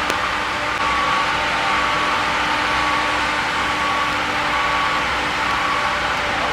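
A steady engine running, with a faint high beep repeating about once a second.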